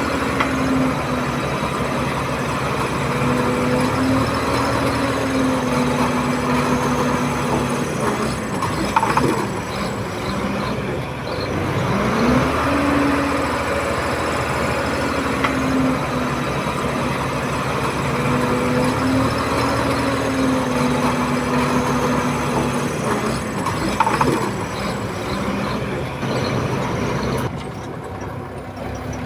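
Komatsu D31P bulldozer's diesel engine working under load, its pitch sagging and climbing again several times as it pushes, with a few sharp metallic knocks from the machine.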